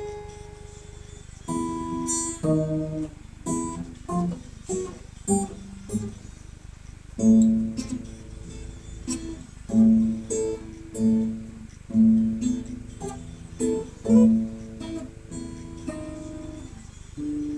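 Guitar played unaccompanied: single plucked notes and short chords at first, then from about seven seconds in, fuller chords struck roughly once a second.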